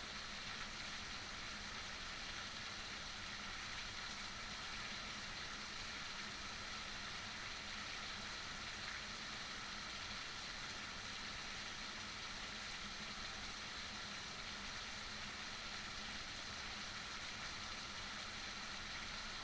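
Steady heavy rainfall, an even hiss of rain falling without a break.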